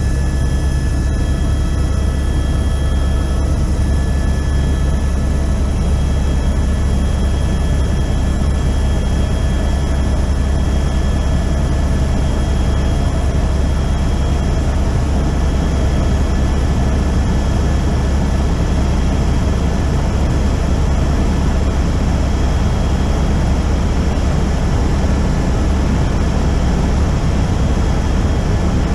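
Helicopter in flight heard from inside the cabin: a loud, steady drone of turbine and rotor with a strong low rumble and faint steady high whines.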